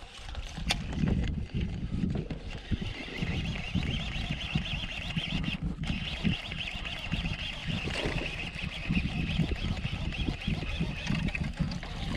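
Fishing reel whirring steadily as line is reeled in to bring a lure back to the boat, over a low buffeting underneath.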